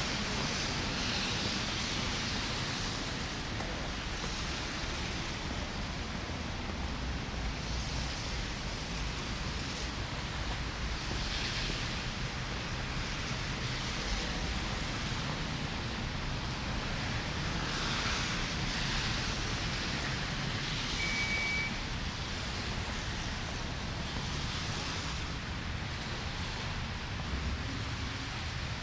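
City street ambience in a blizzard: a continuous hiss over a low rumble, swelling softly every few seconds. A short high beep sounds about two-thirds of the way through.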